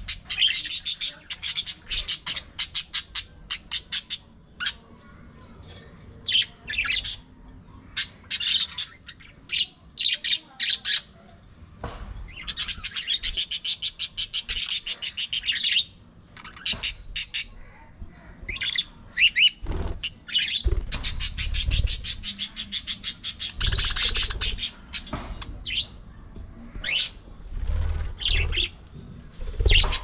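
A flock of budgerigars chattering, rapid high chirps coming in long bursts of several seconds with short pauses between.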